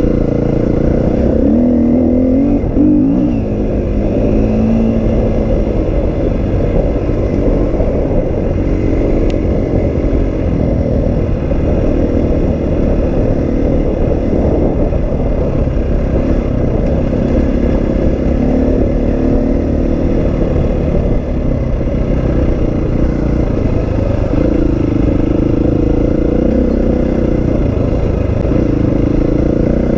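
Husqvarna FE350 single-cylinder four-stroke dirt bike engine running on the move, its pitch rising and falling as the throttle opens and closes, over a steady low rumble.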